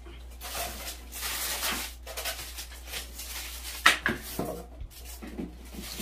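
Refrigerator glass shelf being handled and slid into its plastic rails: rustling and scraping, with one sharp click about four seconds in and a few lighter knocks after it.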